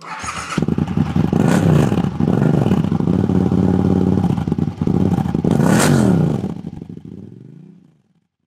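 Vehicle engine revving as a sound effect: its pitch climbs and falls several times, with two sharp whooshing peaks about one and a half and six seconds in, then it fades out near the end.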